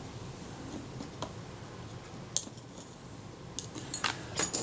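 Light metallic clicks and clinks of small hand tools (tweezers, scalpel) being handled and set down on a workbench mat. There are a couple of isolated clicks early, then several in quick succession near the end.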